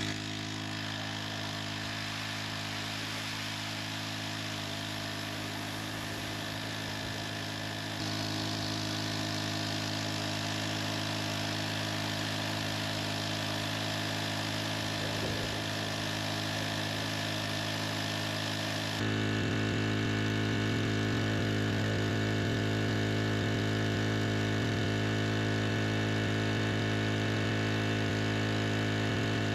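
Koshin Hi-Dels SEV-25F four-stroke engine pump running at a steady, even speed. The sound jumps louder abruptly about eight seconds in and again near twenty seconds.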